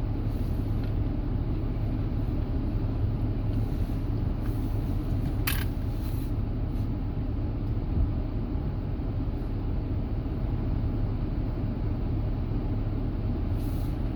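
Car driving, heard from inside the cabin: a steady low rumble of engine and road noise. A brief sharp click about five and a half seconds in.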